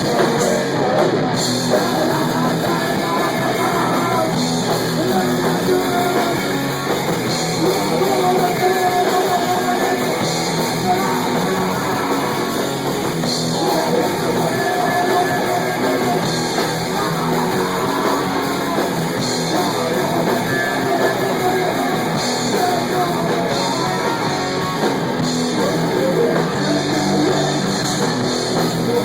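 Rock band playing a song at a practice, with guitar, drums and singing.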